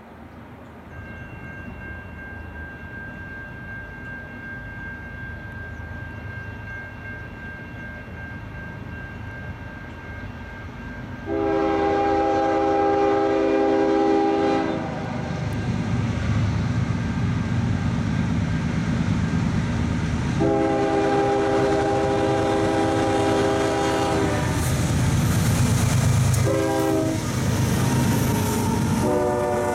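CSX freight train approaching and passing with diesel locomotive engines rumbling. The locomotive's air horn sounds the grade-crossing pattern: two long blasts, a short one, then a long one starting near the end. As the locomotives pass, freight cars roll by with a clickety-clack of wheels on rail joints.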